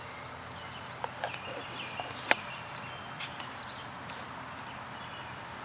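Quiet outdoor ambience with faint, short high-pitched chirps and a few light clicks, the sharpest about two seconds in.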